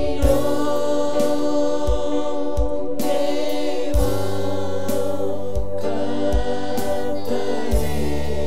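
A worship group of young men and women singing a Christian worship song together into microphones, over long held instrumental chords, with short low thumps every second or so.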